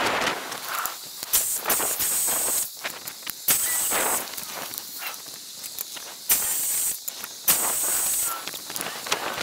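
Pressure-treated 2x4 boards being handled and shifted on an asphalt driveway: scattered knocks and footsteps, with five short hissing scrapes.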